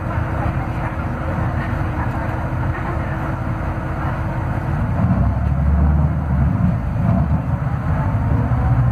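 Scania DC09 five-cylinder diesel of a Scania K280UB city bus running under load, heard from inside the passenger cabin as a steady low drone with road noise. It grows louder about five seconds in.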